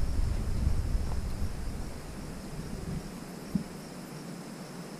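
Insects chirring steadily in a single high band, with a low rumble on the microphone that dies away about two seconds in.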